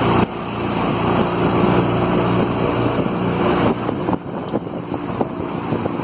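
Motorboat engine running steadily with a low hum, over the rush and splash of water against the moving hull.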